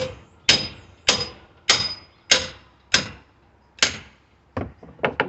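Small sledgehammer striking a steel pry bar to drive it in under a stubborn wood pallet board: seven hard metallic blows about every 0.6 s, each with a brief ring, then a few lighter taps near the end.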